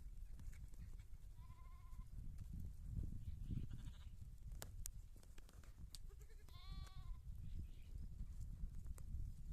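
Goats bleating: two short, quavering bleats about five seconds apart.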